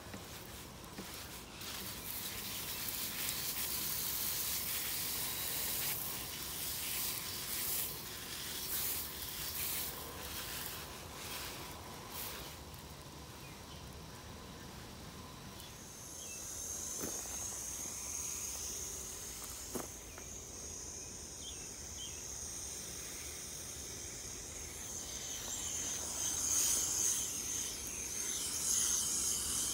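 Fine water spray from a garden hose nozzle hissing as it mists over plants and soil. The hiss swells and fades as the spray moves and is loudest near the end.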